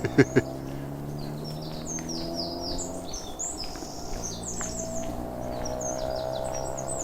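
Small birds chirping: many short, quickly falling chirps in runs, over a steady low hum.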